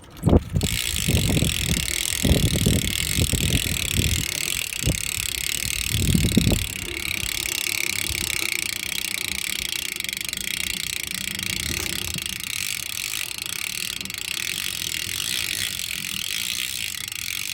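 Rear hub of a Fit BMX bike freewheeling: a fast, steady ratchet buzz as the rear wheel turns without pedalling, with the hub sounding a little greased up. Low thumps sound through the first several seconds.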